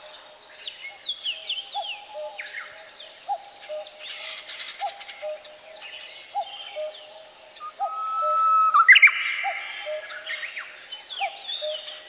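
Small birds chirping and singing in many short falling notes, over a lower call that repeats about once a second; the calls grow louder and busier about two-thirds of the way in.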